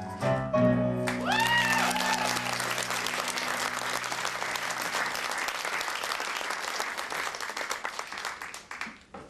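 The accompaniment's last held chord rings out as an audience bursts into applause, with one cheer rising and falling above it about a second in. The chord dies away about halfway through, and the clapping carries on and then fades away near the end.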